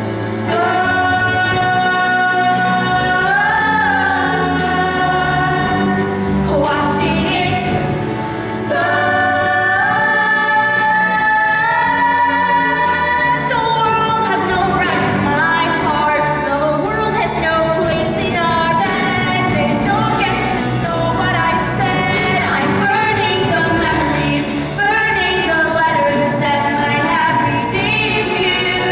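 A vocal group, mostly female voices, singing a song in long held notes that slide from pitch to pitch.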